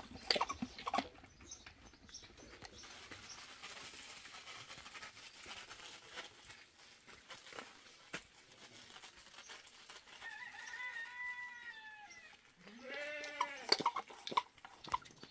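Farm animals calling: a long, high call about ten seconds in, then a shorter, lower call rising in pitch a moment later, the loudest sound here. A few sharp knocks come at the very start.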